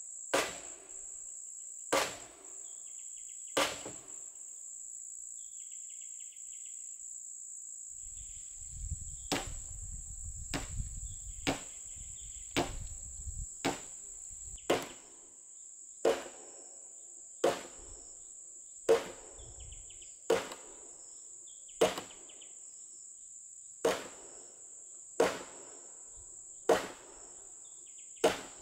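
Sledgehammer blows on a wooden post and beam, about one every second and a half: three early, a pause, then a steady run of hard strikes. A steady high insect drone runs underneath.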